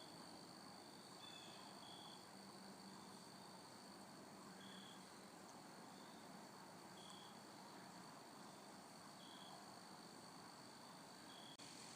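Faint insect sound: a steady high drone with short, high chirps repeating every one to two seconds.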